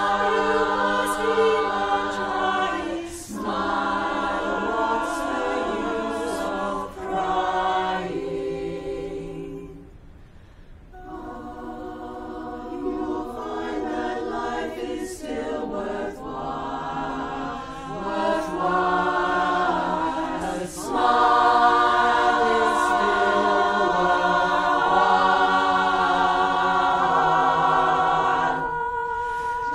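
Women's barbershop chorus singing a cappella, holding close-harmony chords. The singing drops to a soft hush about ten seconds in, builds again, and is at its loudest through the last third, with a short break just before the end.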